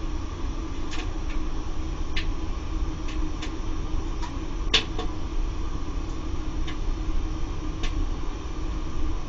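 Laddomat 21 charging unit's circulation pump running with a steady hum and low rumble, with scattered sharp ticks over it.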